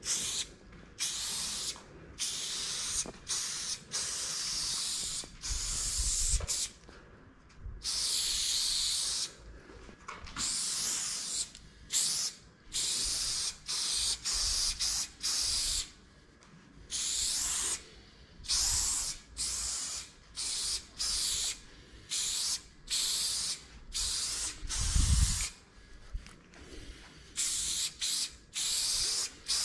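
Aerosol spray paint can hissing in repeated stop-start bursts, some short and some held for a second or two, as graffiti lines are sprayed onto a wall. A few dull low thumps come between the bursts, the loudest near the end.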